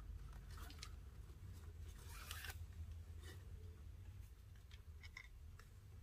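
Nylon paracord rubbing and sliding as hands thread and pull it through a knot, in a few short faint rustles, the loudest about two seconds in, over a low steady hum.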